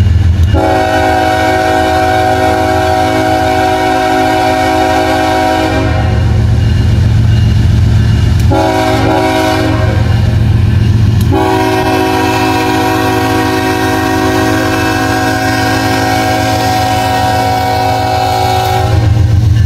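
CSX diesel locomotive's multi-note air horn sounding for a grade crossing: a long blast, a shorter one about eight seconds in, then a long blast held from about eleven seconds until near the end. Underneath runs the low rumble of the approaching locomotive.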